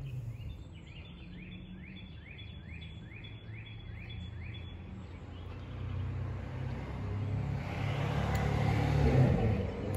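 A car passes by, growing louder to a peak near the end and then easing off. Before it, a bird repeats a short rising chirp two to three times a second for about five seconds.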